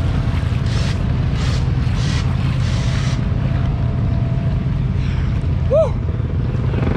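Wading through deep muddy water: several splashing strides in the first few seconds, over an engine running steadily with a low rumble. A short high chirp comes near the end.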